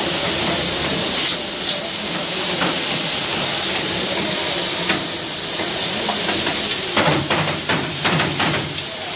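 Pressure cookers on gas burners venting jets of steam through their valves: a steady, loud hiss. A short run of knocks comes about seven seconds in.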